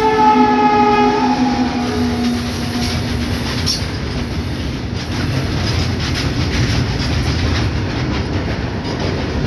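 Horn of a WAG-7 electric locomotive held as it passes, fading out in the first couple of seconds, followed by the steady rumble and clickety-clack of its freight wagons rolling by over rail joints.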